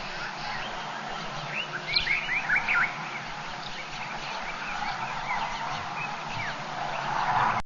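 Bush ambience of many birds calling, with short chirps and quick whistled glides over a steady background chorus, and a louder flurry of calls about two seconds in. The sound cuts off suddenly at the end.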